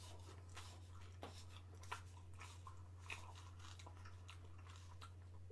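Faint chewing and wet mouth clicks of someone biting into and eating a cream-filled chocolate egg, as scattered irregular ticks over a steady low hum.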